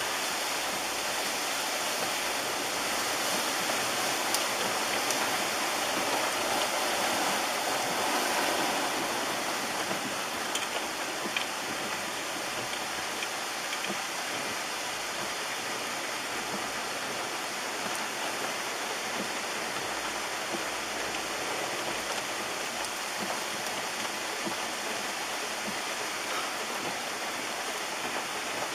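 Steady rushing of running water, slightly louder at first and easing a little about nine seconds in.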